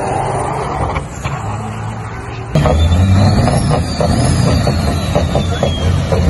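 Diesel semi-truck engines at full throttle in drag-strip runs. A more distant run gives way, about two and a half seconds in, to a sudden, much louder and closer truck engine straining off the line. A high whistle rises and falls twice over it.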